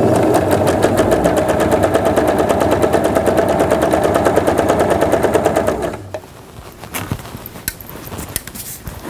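Electric home sewing machine stitching a straight seam at a steady speed, the needle's strokes coming in a rapid, even chatter, then stopping about six seconds in. A few light clicks of fabric being handled follow.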